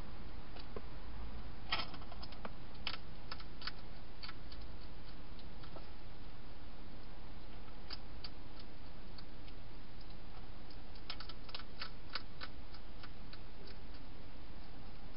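European hedgehog crunching dry food inside a plastic feeding box: irregular sharp clicks and crunches, with a busy cluster about two seconds in and another around eleven to twelve seconds, over a steady hiss.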